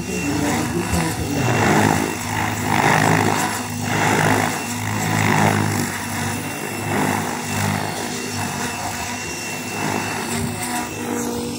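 Radio-controlled model helicopter flying, its motor giving a steady low hum under a rotor whoosh that swells and fades roughly once a second and eases off in the second half.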